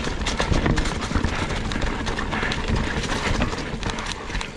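Ibis Ripmo V2 full-suspension mountain bike rolling over a rocky trail: tyres and frame knock and rattle on the rocks in quick, irregular hits over a steady low rumble.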